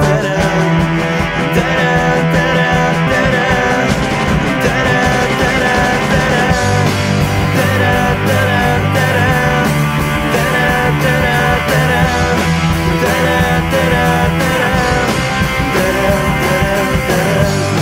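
Rock band playing: electric guitars over bass and drums, with a wavering lead line above.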